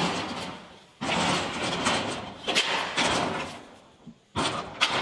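Corrugated metal roll-up door being pulled down, rattling along its track in two long pulls, then its latch handle clanking with a few sharp clicks and two knocks near the end.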